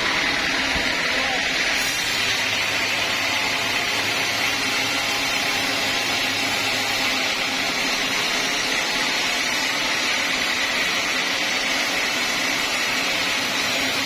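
Band sawmill running steadily: an even, continuous machine noise with a steady high hum from the blade.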